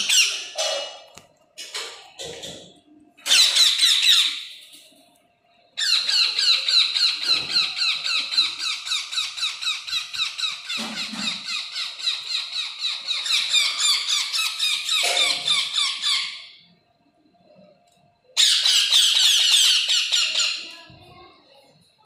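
Baby green parakeets begging for food as they are hand-fed with a syringe: fast, high-pitched, squeaky calls repeated in quick runs. There is a short burst, then a long run of about ten seconds, and another burst near the end.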